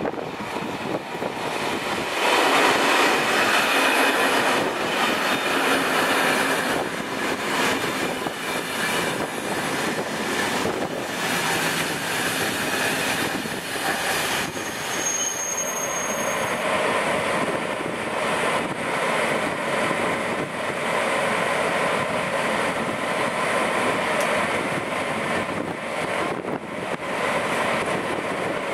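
Electric passenger train running close by along the platform track: a steady, loud rush of wheels on rail and rolling stock, with a brief high-pitched squeal about halfway through.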